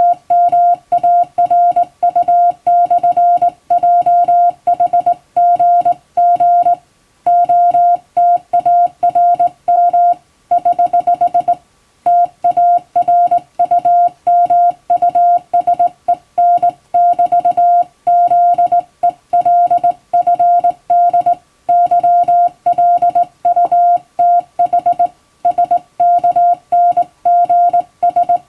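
Hand-sent Morse code (CW): a steady mid-pitched beep keyed on and off rapidly in short and long marks, dots and dashes, with brief pauses between groups. This is English-alphabet Morse sent in telegram format.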